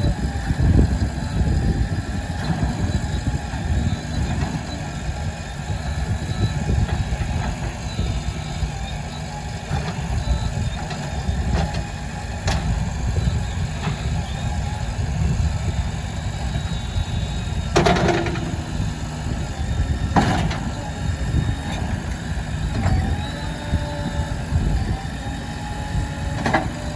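Diesel engine of a JCB 3DX backhoe loader running steadily, with a few sharp clanks: two about 18 and 20 seconds in and one near the end.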